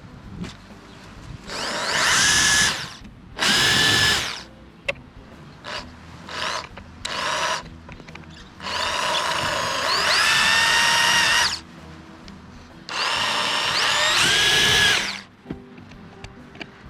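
Electric drill boring holes through the plastic of a console lid in several bursts: two short runs near the start, a brief one midway, then two longer runs of two to three seconds. The motor whine rises in pitch as each run starts.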